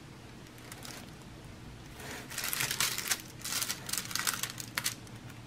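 Clear plastic protective film over a diamond painting canvas crinkling as it is handled, in a series of rustling bursts lasting about three seconds, starting about two seconds in.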